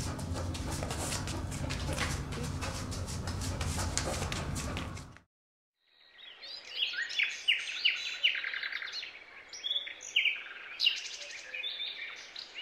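A steady, noisy sound with a low hum cuts off suddenly about five seconds in; after a brief silence, birds chirp repeatedly in short, quick, falling notes.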